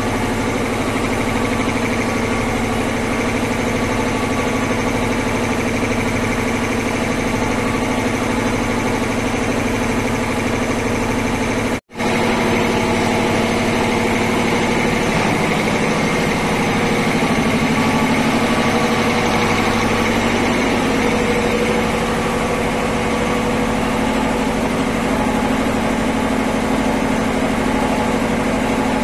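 ELGi reciprocating piston air compressor, driven by an electric motor, running steadily with an even mechanical drone. The sound cuts out for a moment about twelve seconds in, then carries on.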